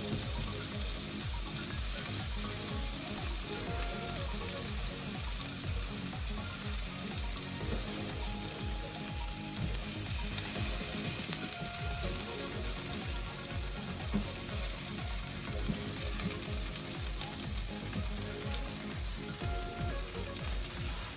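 Food frying in a pan: a steady sizzle that does not let up.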